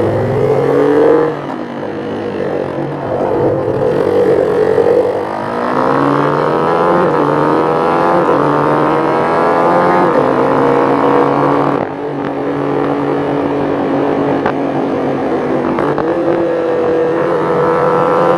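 Motorcycle engine accelerating through the gears on clutchless upshifts: the note climbs, then dips sharply as the throttle is snapped shut to unload the gearbox for each shift, and climbs again in the next gear. The dips come about a second in, around five seconds in, and around twelve seconds in.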